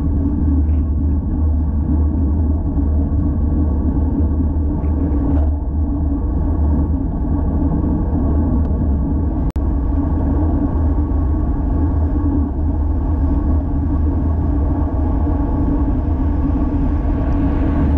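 Steady rumble of wind buffeting the microphone and tyre noise from a road bike rolling along at speed. There is a single short click with a brief dropout about halfway through.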